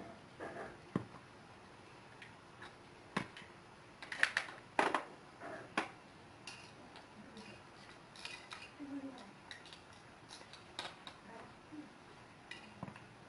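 Small metal hand tools, screwdrivers and pliers, clinking and knocking against each other and a tiled floor as they are picked up and handled. Irregular sharp clicks, busiest about four to six seconds in.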